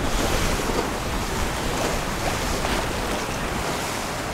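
Steady rush of water along a sailing yacht's hull under sail, with wind buffeting the microphone.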